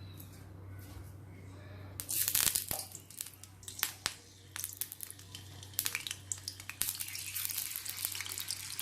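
Frozen potato strips going into hot oil in a frying pan: a sudden loud sizzle about two seconds in, then crackling and popping as the oil keeps sizzling.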